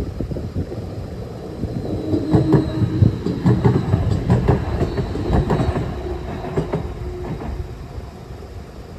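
Stadler Tango light-rail tram-train passing over a level crossing, its wheels clacking over the rail joints. The train comes up loud about two seconds in and fades away after about seven seconds.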